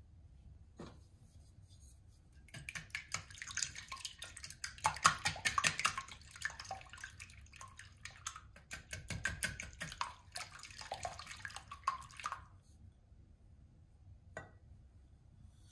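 Raw eggs being beaten with a silicone-coated whisk in a glass bowl: rapid wet swishing with quick clicks of the whisk against the glass, starting a couple of seconds in and stopping about three seconds before the end. A single light knock follows near the end.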